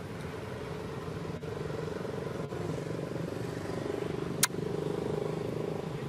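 A motor vehicle engine running steadily in the background with a low, even hum. A single sharp click comes about four and a half seconds in.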